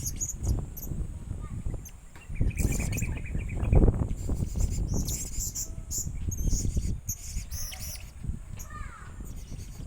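Young tame blue-crowned hanging parrot (serindit) giving repeated short, high-pitched squeaky chirps, with a quick trill about two and a half seconds in. Irregular low rumbling and bumps sound underneath.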